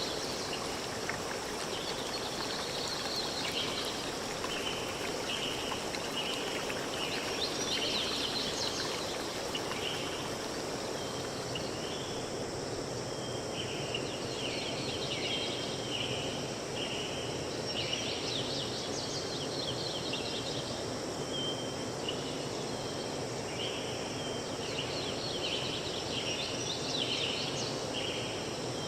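Forest ambience: birds singing over a steady background noise, with a short high call repeated about once a second and a few brief flourishes of song.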